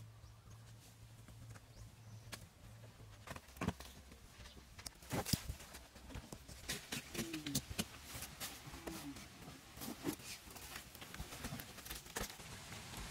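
Hand digging and soil work: scattered, irregular knocks, taps and scrapes of a small hand tool and woven baskets on dry, crumbly earth, starting about three seconds in after a low steady hum.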